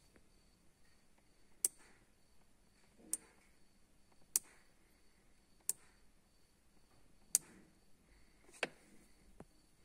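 Small hand-operated slide switch clicking as it is pushed back and forth, six sharp clicks roughly every second and a half. The switch cuts a resistor in and out in parallel with the coolant temperature sensor.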